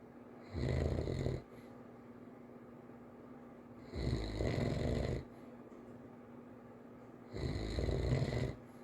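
A child snoring lightly in sleep: three snores, each about a second long, coming roughly every three and a half seconds.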